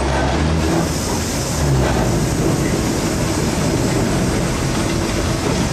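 Cab noise on the footplate of the Peppercorn A1 Pacific steam locomotive 60163 Tornado on the move: a loud, steady mix of running rumble and rattle, with a low hum in about the first two seconds.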